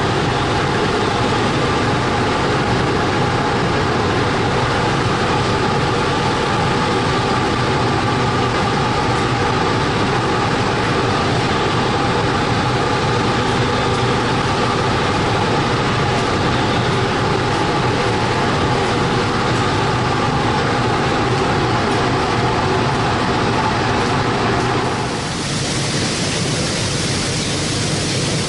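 Steady drone of a fishing trawler's machinery, a constant hum with several steady tones. About 25 seconds in it gives way to a broad, even hiss.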